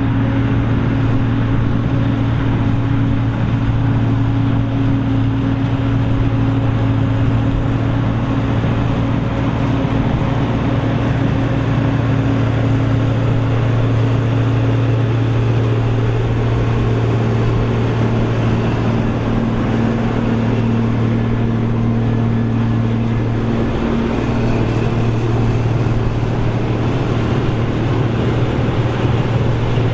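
Krone BigX 700 self-propelled forage harvester running steadily under heavy load while chopping corn: its diesel engine and chopping gear give a loud constant deep hum over a dense mechanical roar, with one brief dip in the hum about three-quarters of the way through.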